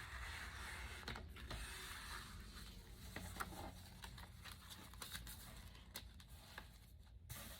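Faint handling noises in a small room: scattered light clicks and soft rustles.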